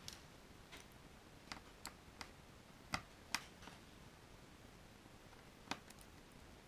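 Scattered light clicks and taps of a Phillips screwdriver working on the small screws that hold a laptop's LCD panel, about nine in all, the loudest two a little after three seconds in.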